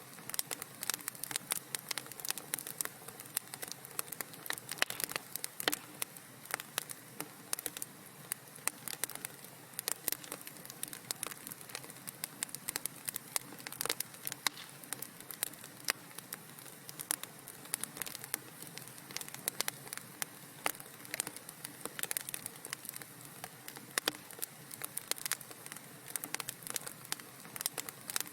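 Wood fire crackling in a fireplace: a dense, irregular run of sharp pops and snaps over a soft steady hiss.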